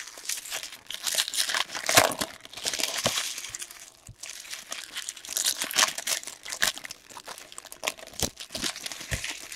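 Foil wrappers of Topps WWE trading-card packs being torn open and crumpled by hand: irregular crinkling and crackling with a few sharper tears.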